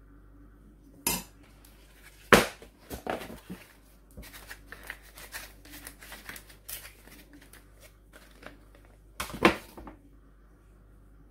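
Kitchen handling sounds: a metal spoon scraping and tapping as vegetable filling is spooned onto pie pastry, and a plastic pie press being closed, squeezed and opened. Sharp clacks about one and two seconds in and again near the end, with a run of small clicks and scrapes between.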